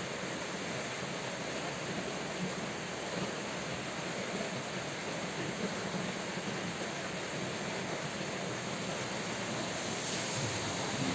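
Steady, even rain falling. Near the end a low rumble comes in under it.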